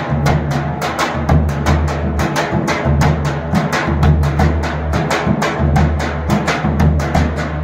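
Drum-led music with a fast, steady beat of strikes over a heavy bass.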